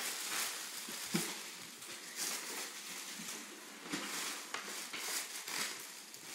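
Tissue paper crinkling and rustling as it is pulled out of a paper gift bag, coming in several uneven surges.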